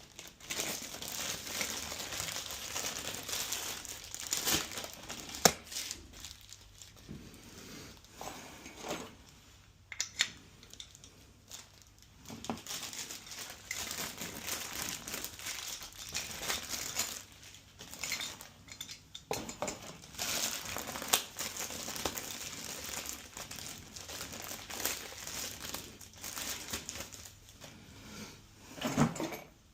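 Packaging crinkling and rustling in irregular spells, with scattered clicks and knocks, as a set of new door handles is unpacked.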